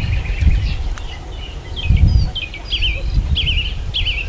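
Birds calling: a run of short, repeated chirping notes that wobble up and down in pitch, coming faster and clearer in the second half. Under them, a low, uneven rumble that swells loudest about two seconds in.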